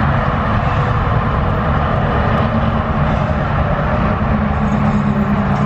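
A vehicle engine running steadily: a low, even hum over road-side noise, stepping up slightly about two-thirds of the way through.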